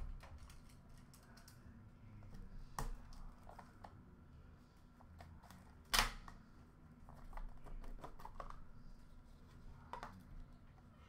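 Hands handling and opening a small cardboard trading-card box: light taps and rustles, with a sharp click about six seconds in and a smaller one near three seconds.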